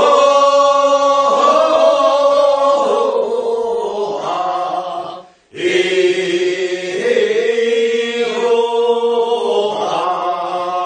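Group of singers chanting the drawn-out refrain of a Korean paddy-weeding work song (non maeneun sori, first weeding), answering the lead singer's verse. Two long held phrases with a short breath between them about halfway through.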